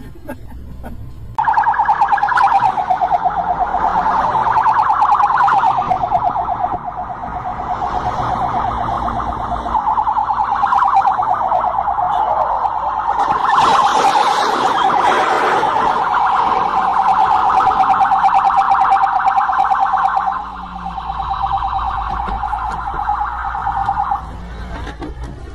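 A police car's electronic siren wailing with a very fast warble. It starts about a second in, drops away briefly near 20 seconds, and cuts off shortly before the end.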